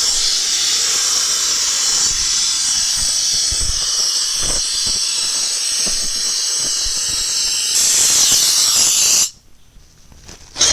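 Compressed-air-driven headrest vacuum hissing steadily as shop air rushes through it, drawing down the dense foam of a headrest. It gets louder about three-quarters of the way through, then cuts off suddenly near the end.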